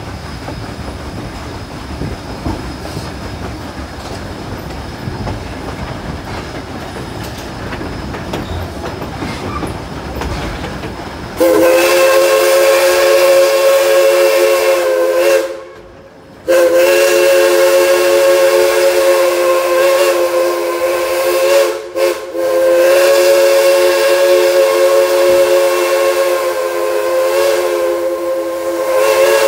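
A steam train running with a steady rumble of wheels on rail, then, about a third of the way in, the geared Climax steam locomotive's chime whistle sounds in long chord blasts: one of about four seconds, then after a second's pause a longer blast with a brief break, held until near the end.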